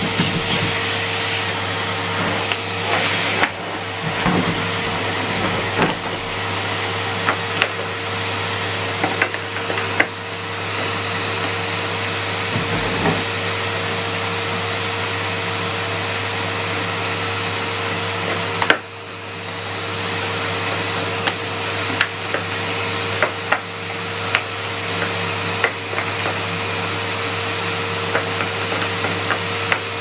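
Hetty HET 160 bagged cylinder vacuum cleaner running steadily, a motor hum with a thin high whine, with scattered clicks and knocks as its plastic nozzles and wand are handled. About two-thirds of the way through the motor note drops sharply and recovers over a second or so.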